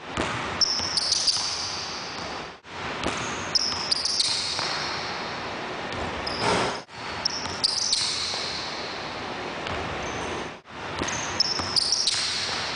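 Basketball dribbled on a gym floor in repeated takes of a left-hand back-through and in-and-out dribble drill finishing with a eurostep. Sharp ball bounces come with short high-pitched sneaker squeaks. Each take cuts off abruptly before the next begins.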